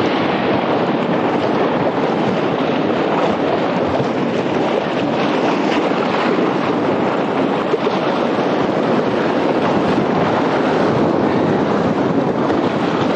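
Whitewater rapids rushing and splashing around a kayak's bow as it runs a Class II–III river, a loud, steady rush of water with spray hitting close to the microphone.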